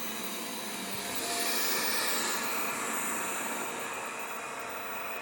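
Xiaomi Mop P robot vacuum running just after being switched on, its suction fan giving a steady whooshing whir that swells about a second in and then eases a little.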